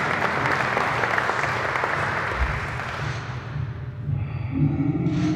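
Audience applauding, the clapping dying away about three seconds in. Music with sustained tones starts near the end.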